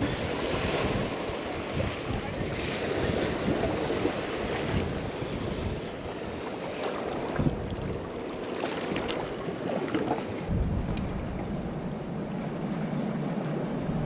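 Ocean surf washing against shoreline rocks, with wind on the microphone and a few small knocks. About ten seconds in the sound shifts to a duller, steadier wash.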